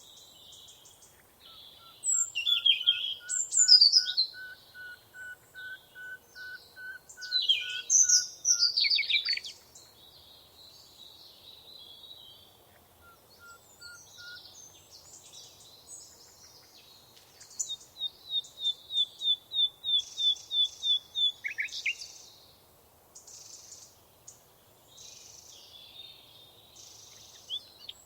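Several songbirds singing together: one repeats a low whistled note about twice a second for the first several seconds while others give loud, steeply falling sweeping phrases. Past the middle a fast run of high repeated notes, about four a second, goes on for a few seconds, with softer chirps in between.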